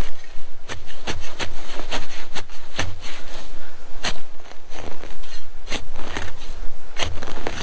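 Metal spade blade digging and scraping into leaf-covered forest soil, a run of sharp scrapes and chops about two a second.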